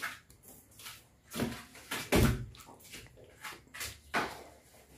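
Irregular knocks and clatters of kitchen containers and lids being handled on a stone counter, the loudest a deeper thud about two seconds in.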